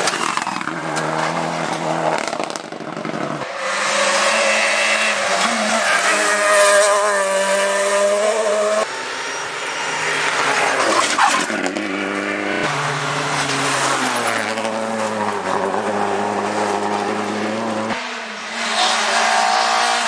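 Rally cars at full throttle, one after another, engines revving high and changing pitch through gear changes as each passes, starting with a Subaru Impreza. The sound changes abruptly every few seconds where separate clips are cut together.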